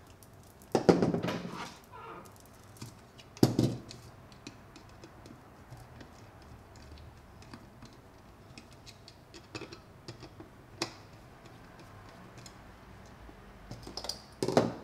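Clicks and knocks of a screwdriver working the screws of a plastic camera body's cover and of tools and parts being handled on a tabletop. There are a couple of louder knocks, one about a second in and one a few seconds later, another near the end, and light scattered clicks in between.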